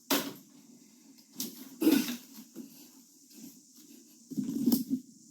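A sleeping woman snoring: three short, breathy snores about two seconds apart.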